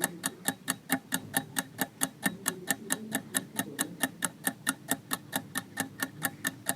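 Countdown-timer ticking sound effect: rapid, even clock-like ticks, about six a second, over a faint low hum.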